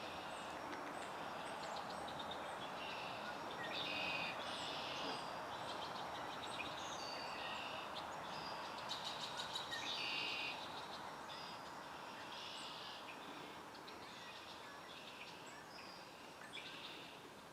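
Small songbirds singing and chirping in repeated short high phrases, with a rapid trill about nine seconds in, over a steady background hiss.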